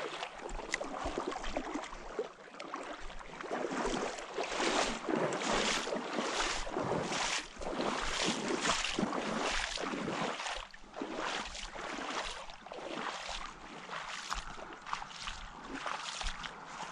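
Footsteps of a person walking along a river's edge over mud and fallen leaves, at a steady pace of about one and a half steps a second.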